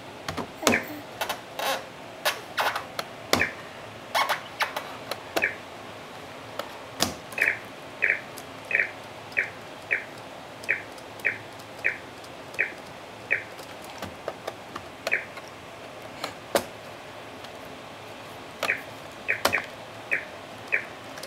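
Small hands tapping and slapping a laptop keyboard, giving scattered sharp clicks, with a series of short high chirps repeating about every two-thirds of a second through the middle and again near the end.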